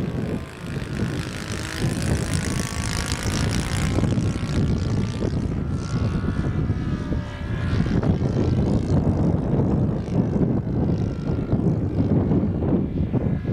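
Radio-controlled model airplane's propeller engine buzzing as it flies past, its pitch sliding up and down a couple of times, under heavy wind buffeting the microphone, which is the loudest sound.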